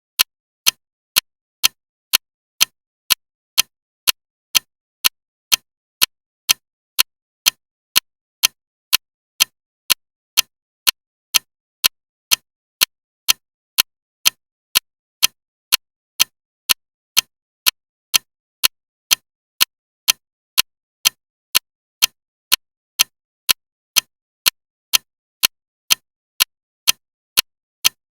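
Loud ticking clock, sharp evenly spaced ticks at about two a second.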